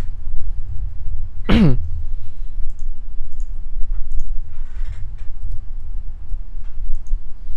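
Scattered clicks of a computer mouse and keyboard while a stock ticker is searched and typed in, over a steady low rumble and hum. A short vocal sound with falling pitch comes about one and a half seconds in.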